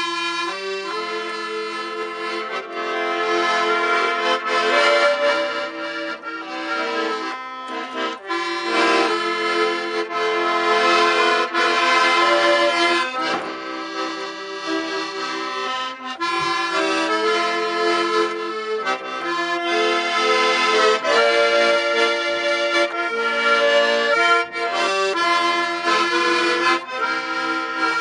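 Wurlitzer piano accordion played solo: a melody on the treble keyboard over bass-button accompaniment, in sustained reedy notes with short breaks between phrases.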